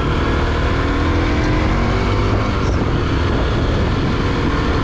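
Bajaj Pulsar NS200's single-cylinder engine pulling away under throttle, its pitch rising over the first couple of seconds and then running on at speed.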